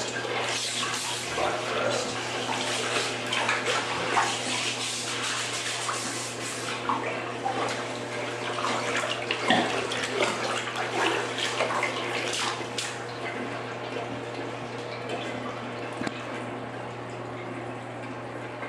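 Water sloshing and splashing in a bathtub full of standing water as a plastic drain-cleaning strip is pumped up and down in the clogged drain, with a steady low hum underneath. The splashing dies down over the last few seconds.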